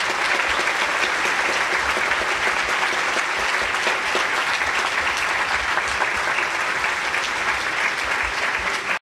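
Large audience applauding steadily after a talk, dense clapping throughout; it cuts off abruptly near the end.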